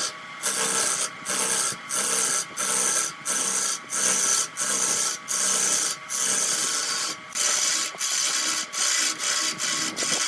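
A hand tool rubbing against wood in steady back-and-forth strokes, about one and a half strokes a second, each with a hiss that breaks off briefly between strokes.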